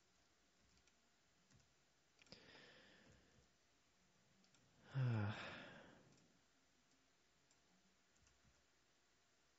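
A man breathes in near the microphone, then lets out a voiced sigh that falls in pitch about five seconds in, with faint computer mouse clicks scattered throughout.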